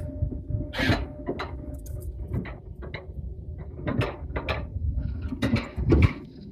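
Mountain coaster sled running along its steel tube track, rattling and knocking irregularly over a steady low rumble, with a loud knock about six seconds in.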